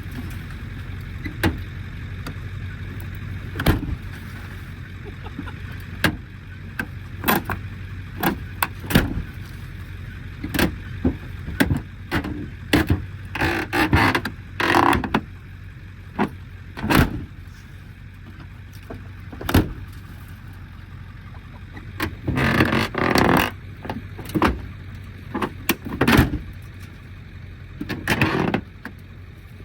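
A Ford F-250 pickup's door being slammed shut over and over, with sharp bangs every second or two and a few longer stretches of rattling clatter. The repeated slamming is damaging the door's hinges.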